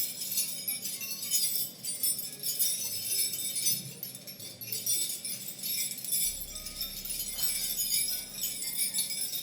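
Continuous bright metallic jingling, many small pieces of metal shaken and clinking together.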